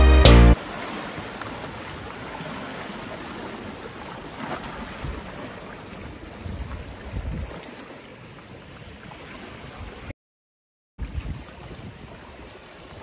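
Small sea waves washing and gurgling over a rocky shoreline, with wind rumbling on the microphone. Music cuts off about half a second in, and the sound drops to dead silence for about a second near the end.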